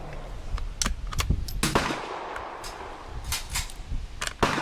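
Rifle shots at a shooting range: about ten sharp cracks at irregular spacing, some faint and some loud, the loudest about a second and a half in and just before the end. The shots come too fast for one bolt-action rifle, so more than one gun is firing.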